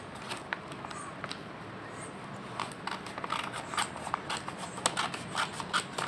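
Scissors cutting open a paper envelope: a run of short snips and paper crackles, which get busier and louder about halfway through.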